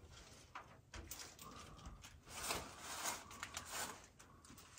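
Faint scuffing and rustling of someone moving through a narrow rock crevice, with a soft knock about a second in.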